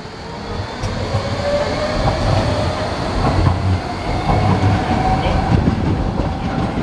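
Docklands Light Railway B07 stock train accelerating away from the platform: wheels rumbling on the rails, with an electric whine that rises slowly in pitch as it gathers speed. The sound grows louder over the first couple of seconds.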